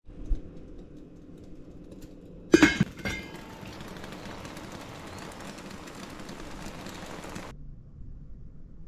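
A lid clanks onto a steel stockpot of seasoned blue crabs, a few ringing metallic knocks, followed by a steady hiss of the pot steaming that cuts off suddenly near the end.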